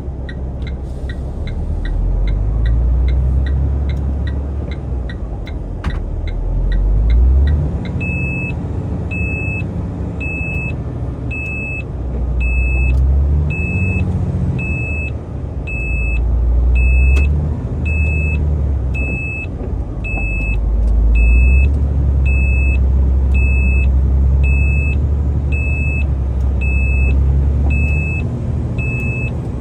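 Dongfeng truck's diesel engine revving in repeated surges as the truck tries again to climb a snowy hill it is stuck on. A steady ticking runs through the first several seconds, and from about eight seconds in a warning beep repeats a little faster than once a second.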